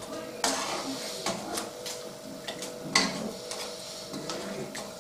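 A metal ladle scraping and knocking against a metal pan while stirring thick tomato spaghetti sauce: irregular scrapes and clinks, the sharpest about three seconds in. A steady low hum runs underneath.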